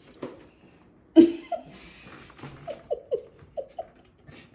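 A person laughing: a sudden loud outburst about a second in, a breathy hiss, then a run of quick short 'ha' pulses from the middle on.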